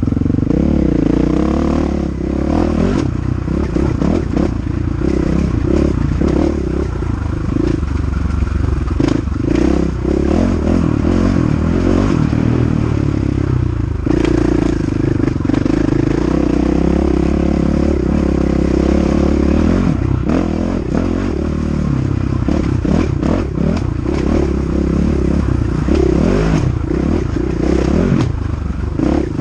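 KTM EXC 500 single-cylinder four-stroke dirt bike engine under hard riding, its revs climbing and falling off again and again as the throttle is worked.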